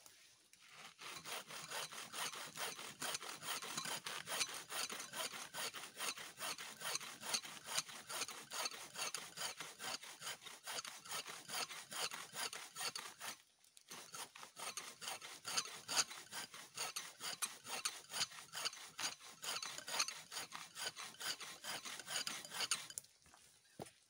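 Hand saw cutting through the base of a thin standing tree trunk with quick back-and-forth strokes, pausing briefly about halfway and stopping near the end as the trunk is cut through.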